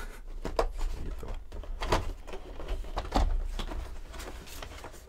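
Stiff plastic packaging being handled: a clear plastic blister cover and a vacuum-formed accessory tray clicking and crackling irregularly, with a few sharper snaps.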